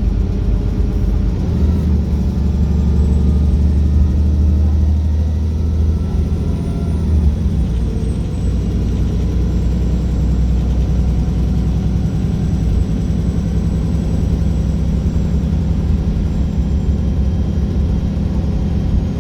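Wright Pulsar single-deck bus's diesel engine running with a steady deep rumble, its note shifting slightly a few seconds in.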